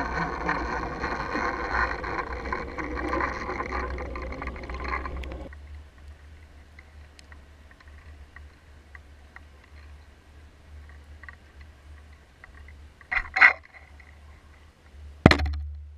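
Underwater camera audio as it sinks away from the surface: churning water and bubbles for about the first five seconds, which cut off sharply to a quiet, muffled bed with a low steady rumble and faint ticks. Two sharp knocks near the end.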